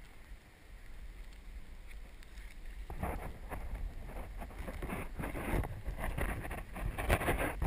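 Rustling and crackling of leaves and brush close to the microphone, starting about three seconds in and getting louder toward the end, over a low rumble of wind on the microphone.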